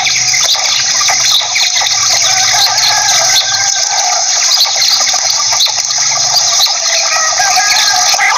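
Quail calling in a dense chorus: many short, overlapping calls with no break between them.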